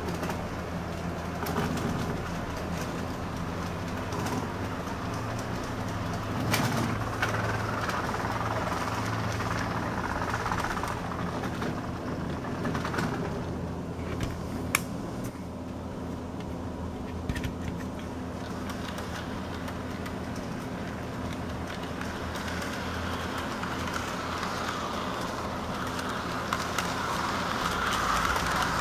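Electric model trains running on the track: a steady motor hum with wheels rolling on the rails and a few sharp clicks. It grows louder near the end as a passenger car rolls past close by.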